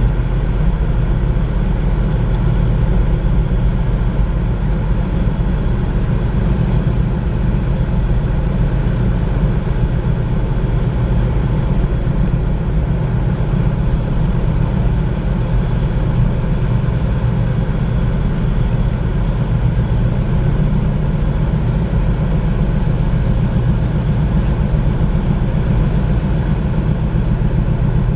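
A large vehicle carrier's diesel engine running steadily as the ship manoeuvres into port: a low, even rumble with a constant hum that does not change.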